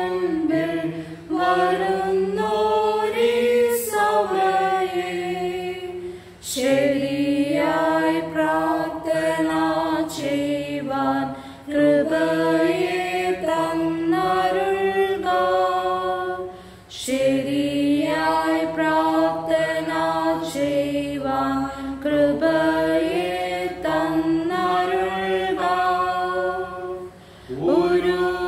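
Hymn singing: a slow melody sung line by line, with short breaks between phrases.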